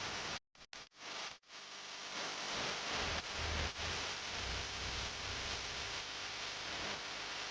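Steady hiss of noise, broken by a few brief dropouts to silence in the first second and a half.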